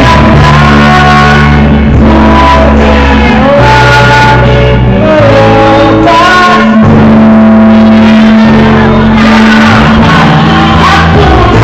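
A pop-rock song performed by a band with a lead singer: a sung melody over held bass notes and full backing.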